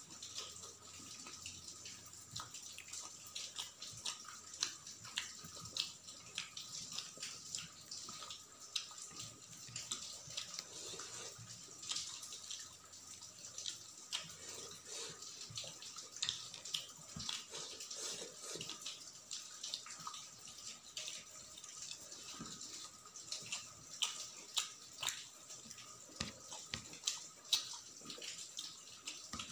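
Close-up wet chewing and mouth smacks of rice being eaten by hand, mixed with the squish of rice being kneaded by fingers on a steel plate. The sound is a continuous patter of many small, sharp, wet clicks.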